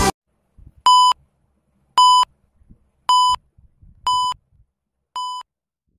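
Five short electronic beeps, about one a second, each a single steady tone, the last one quieter.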